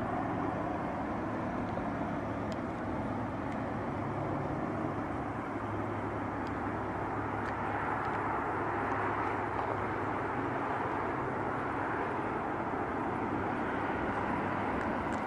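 Steady rumble and hiss of road traffic, with a faint low engine hum underneath.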